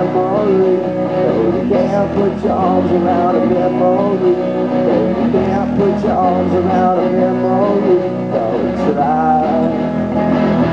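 A live rock and roll band playing loudly: electric guitar with singing over a steady full-band backing.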